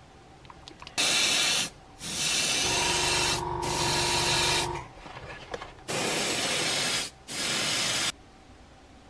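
Airbrush spraying acrylic gloss varnish in four bursts of hiss, each one to three seconds long, separated by short pauses. A low hum and a steady tone run under the longest burst.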